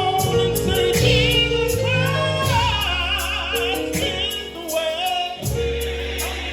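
Live gospel music: a singer's wordless ad-lib runs with heavy vibrato over sustained keyboard chords and a bass line.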